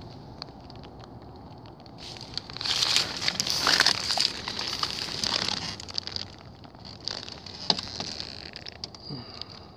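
Footsteps crunching through dry leaves and brush, with twigs crackling and snapping and branches scraping past. The crackling is loudest for a few seconds from about two and a half seconds in, then thins to scattered snaps.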